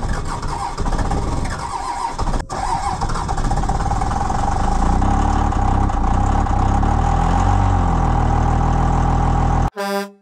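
A pickup truck's engine running loudly while its exhaust pours out smoke, its note shifting in pitch. It cuts off abruptly near the end and a short horn blast follows.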